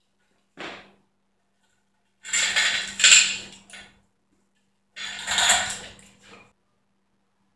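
Hoist chain rattling and metal clanking as an aluminium intake manifold is lifted off a small-block V8 and swung aside: a short clink, then two longer noisy bursts of clatter of a second or more each.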